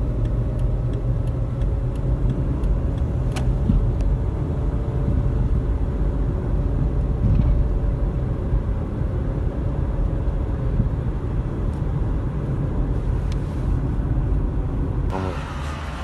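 Steady engine and road rumble inside a Toyota compact sedan's cabin while driving, with a faint steady whine and faint regular ticks in the first few seconds. The rumble eases slightly near the end as the car nears a junction.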